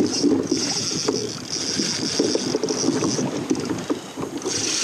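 Choppy sea slapping and sloshing against the hull of a plastic fishing kayak, with a high hiss that drops away for about a second past the middle.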